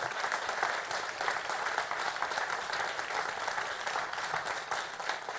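A large crowd applauding, many hands clapping steadily.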